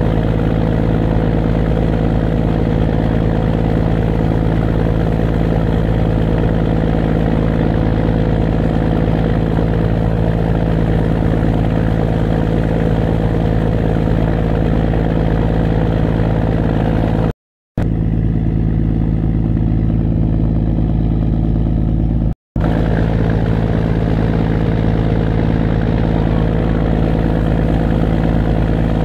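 Towing fishing boat's engine running steadily with a constant low hum as it pulls a capsized boat on tow ropes. The sound cuts out twice, briefly, at about 17 and 22 seconds in.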